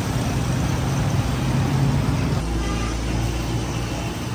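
A motor vehicle's engine running with a steady low hum, which deepens and grows stronger about two and a half seconds in.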